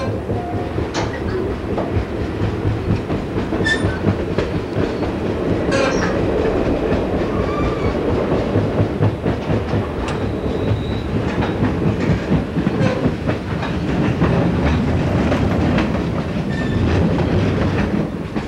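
VIA Rail Canadian's stainless-steel passenger train running at speed, heard from an open window alongside the cars: a steady rumble of wheels on track with scattered sharp clicks.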